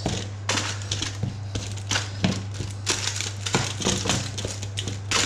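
Crinkling of a lined baking tray's lining paper and rustling, clicking knocks of oiled vegetable chunks being pushed around and spread out on it, over a steady low hum.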